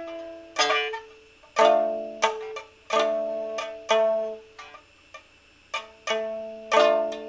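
Solo improvised music on a plucked string instrument: single notes and chords that start sharply and are left to ring and fade, with a short lull about five seconds in.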